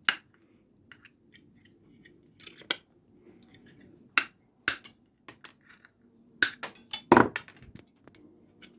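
Old mains prongs being broken off a cheap plastic wall-wart power adapter: a string of sharp clicks and snaps of tool and metal against thin plastic, with a louder cluster of snaps about seven seconds in.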